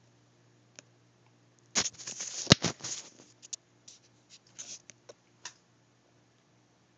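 Rustling and crackling clicks for about a second and a half, starting about two seconds in, followed by a few scattered single clicks.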